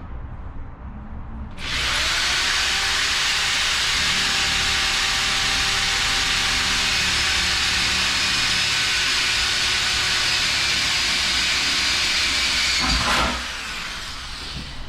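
Power drill spinning up and running steadily for about eleven seconds as it drills into the metal roof basket, then stopping.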